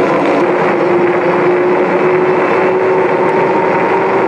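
Engwe X24 fat-tyre electric bike at speed under full throttle: a steady rush of wind and tyre noise, with a faint electric motor whine that steps up a little in pitch about half a second in as the bike gains speed.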